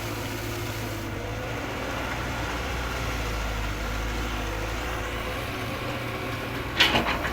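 Radio-controlled model excavator's motors running with a steady low hum, and a sharp clatter near the end.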